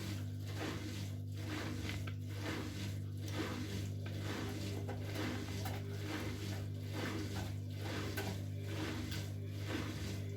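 Bosch Maxx WFL 248Y front-loading washing machine's drum turning slowly over a steady motor hum, the laundry tumbling with a regular swish a little more than once a second. This is the slow distribution turning the machine does while trying to even out an unbalanced load before it will spin.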